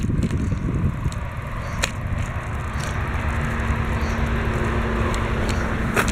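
Bicycle rolling along a rough trail surface: a steady rumble of tyres and wind on the microphone, with a few sharp clicks and rattles. A faint steady hum comes in about two seconds in and runs on.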